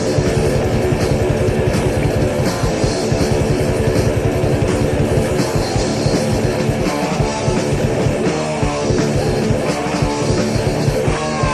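Heavy metal band recording: distorted electric guitars over fast, driving drums in an instrumental passage, with a gliding pitched line entering near the end.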